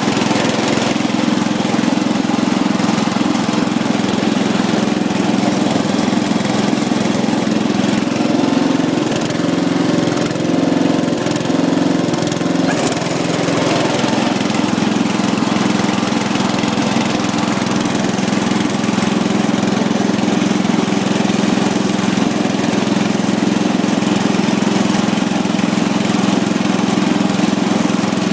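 Riding lawn mower engine running steadily under load, its pitch wavering briefly about a third of the way in.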